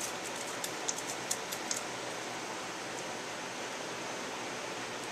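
Steady background hiss with a few faint light clicks in the first couple of seconds, from the head gasket being slid down over the cylinder studs and the cam chain being fed through it.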